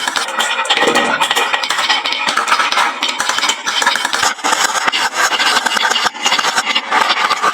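Many marbles rolling and clattering down a wooden marble run: a continuous dense rattle of small clicks as they knock against the wooden track and each other.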